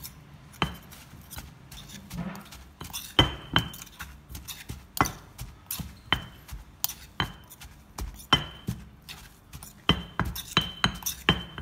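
Stone pestle knocking and a metal spoon clinking and scraping in a stone mortar as a chopped fish and green mango salad is pounded and mixed together: irregular knocks with short ringing clinks, about one or two a second.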